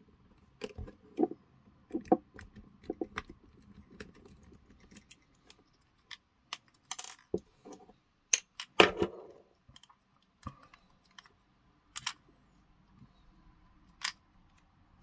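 Small clicks and taps of a precision screwdriver, tiny screws and the plastic parts of a eufyCam 3 housing being handled. The loudest is a metallic clink about eight to nine seconds in, a screw dropped into a metal parts tin.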